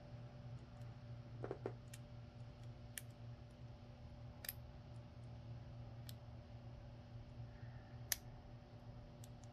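Hook pick and tension tool working the pins of a brass Euro profile cylinder lock: a handful of small, sharp metallic clicks a second or so apart over a faint steady hum.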